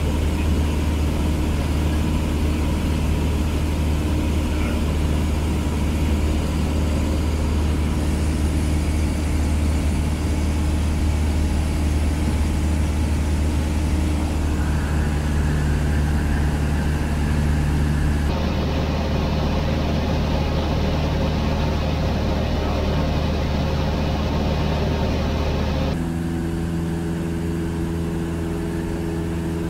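Cessna 152's four-cylinder Lycoming engine and propeller droning steadily in flight, heard from inside the cabin. The pitch and tone of the drone shift abruptly twice, about two-thirds of the way in and again near the end.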